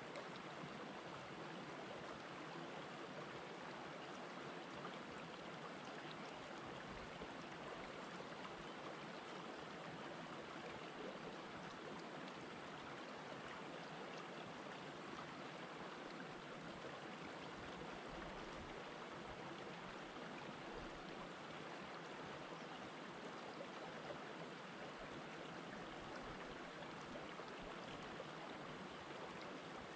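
Shallow rocky stream flowing steadily among boulders: a continuous, even sound of running water.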